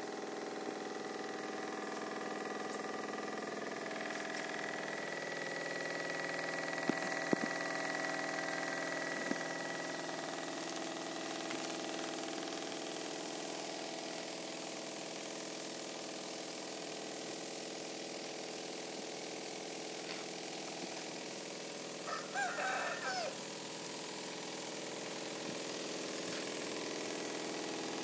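A motor hums steadily with a mix of level tones. A rooster crows once, about three-quarters of the way through.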